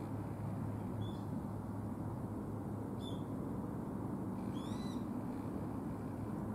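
A bird calling three times: two short high calls about two seconds apart, then a slightly longer call with a rising and falling pitch near five seconds in, over a steady low rumble.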